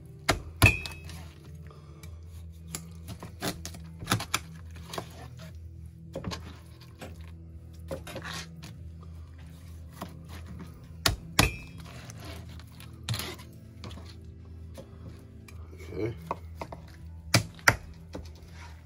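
A chef's knife cutting raw chicken breast on a plastic cutting board: scattered knocks and taps as the blade hits the board, a couple of them with a brief metallic ring, over a steady low hum.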